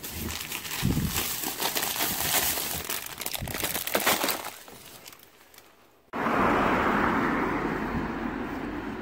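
Plastic ice-candy bags crinkling and rustling as they are packed into a freezer, for about four and a half seconds. About six seconds in, a steady rushing noise starts abruptly and slowly fades.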